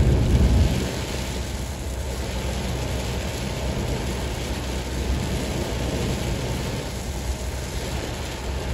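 Car driving on a wet highway in heavy rain, heard from inside the cabin: a steady low road and tyre rumble with rain hissing on the windshield. A louder rush in the first second as a wiper sweeps the glass.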